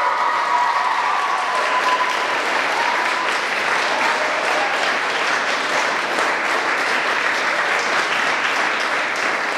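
Audience and cast applauding: many hands clapping in a steady, even patter.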